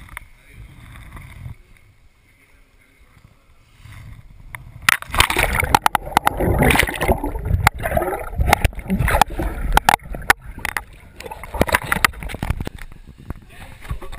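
Water splashing and sloshing around a kayak in a swimming pool, beginning suddenly about five seconds in with a dense run of splashes and sharp knocks.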